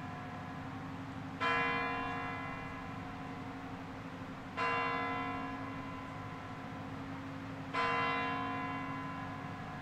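The hour bell of the Kremlin's Spasskaya Tower clock striking ten o'clock: three slow strokes about three seconds apart, each ringing on and fading over a steady low hum.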